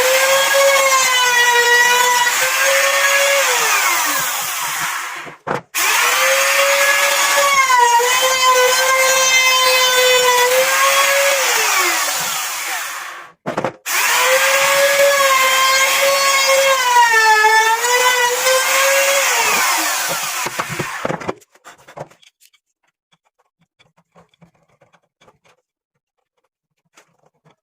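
Electric power tool motor whining at a high, steady pitch, three times. Each time its pitch sags briefly as it bites into wood, then glides down as the tool is switched off and spins to a stop. Only a few faint clicks follow the third run.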